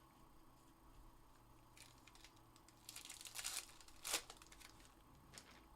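Faint crinkling and rustling of trading cards and their packaging being handled, in a few short bursts with the busiest stretch about three seconds in and a sharper crackle just after.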